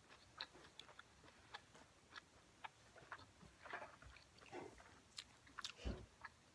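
Faint chewing of food: a scatter of soft mouth clicks as a person eats, with a soft thump near the end.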